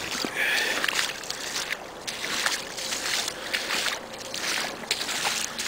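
Rubber boots wading through shallow floodwater, splashing and sloshing with each step, about one step a second.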